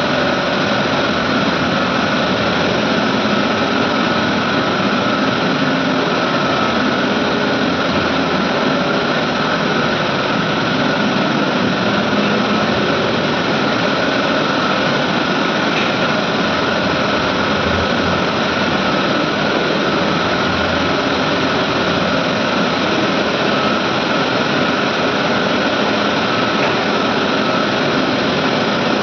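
Medical air compressors running steadily: a loud, constant machine noise with a steady high hum.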